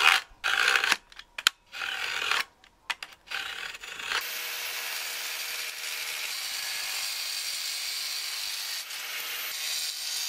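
A utility knife drawn across a ceramic tile in several separate scratchy strokes, scoring it. About four seconds in, an angle grinder comes in and runs steadily with a constant whine as it cuts through the scored tile.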